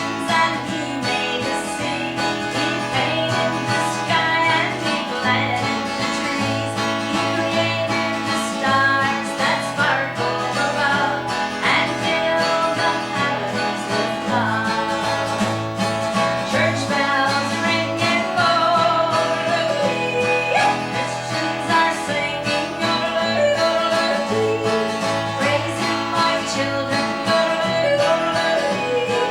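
Live traditional country music from a small band led by acoustic guitar, with a bass line underneath and a melody line bending over the top.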